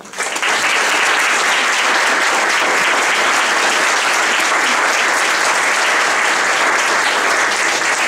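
Audience applauding: dense clapping that starts suddenly and holds steady.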